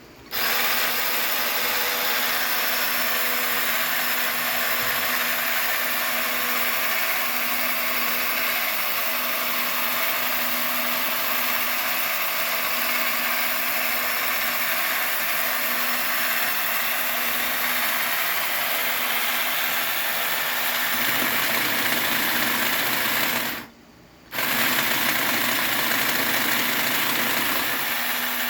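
Power tool motor running steadily at high speed. Its tone shifts about three-quarters of the way through, and it cuts out for about half a second before starting again.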